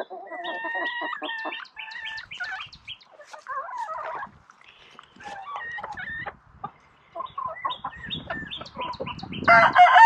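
A flock of chickens clucking and giving short calls. Near the end a rooster starts a loud crow.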